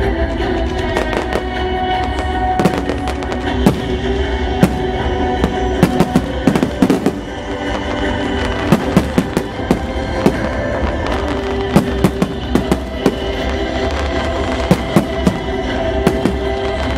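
Fireworks display: aerial shells bursting in a rapid, irregular string of bangs, with music playing under them throughout.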